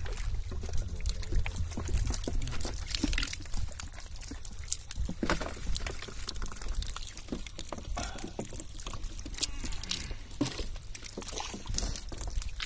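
Wet slapping and squelching in mud and shallow water as hands pick a catch of small fish out of a cast net, with many irregular short slaps and water trickling from the net.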